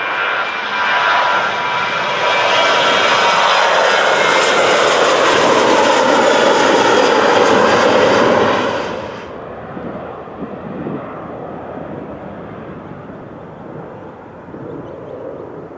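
Jet airliner engines passing close by, a loud rushing noise with a thin whine. It cuts off abruptly about nine seconds in, leaving quieter, fading engine noise.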